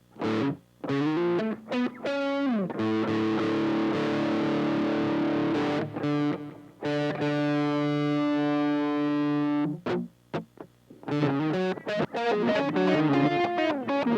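Electric guitar played through a Boss ME-80 multi-effects processor with a distorted tone. A few short picked notes and a slide down in pitch lead into two chords each held for several seconds, then a run of quick notes near the end.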